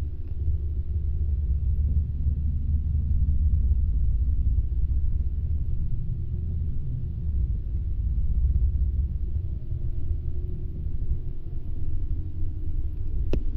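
City bus in motion, heard from inside at the window: a steady low rumble of engine and road noise, with a faint rising engine tone late on. One sharp click near the end.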